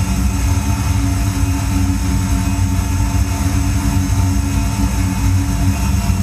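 Dance soundtrack of a steady, loud, low machine-like drone, with several held tones sounding above the rumble.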